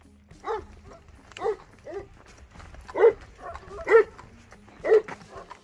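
A dog barking repeatedly, about six barks roughly a second apart, the loudest a little past the middle.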